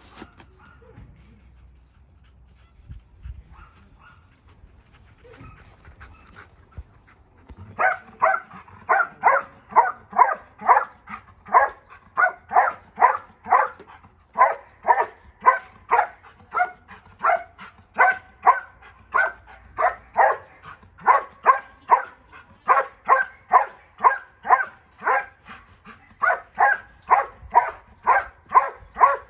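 A dog barking in a steady rhythmic series, about two barks a second, starting about eight seconds in after a quiet stretch with a few faint knocks. In IGP protection work, sustained barking like this is the dog's hold-and-bark at the helper.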